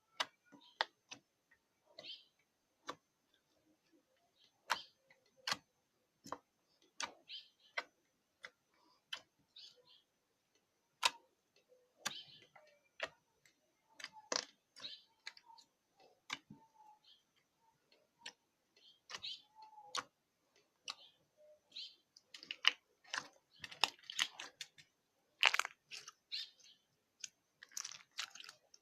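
Slime being squeezed and poked, giving irregular sharp clicks and small crackling pops from trapped air. The pops come more thickly toward the end.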